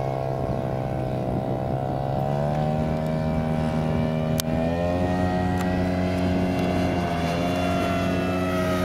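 Radio-controlled model of the Kyushu J7W Shinden, a pusher-propeller canard fighter, flying overhead: a steady propeller and motor drone whose pitch steps up a couple of times and dips briefly near the end. A brief sharp click about four and a half seconds in.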